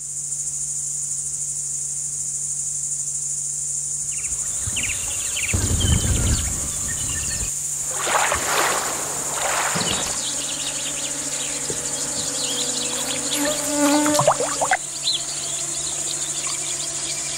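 Insects chirring steadily in a high, unbroken drone over marsh water. About six seconds in and again from eight to ten seconds, loud splashing as a Russian desman thrashes at the water's surface.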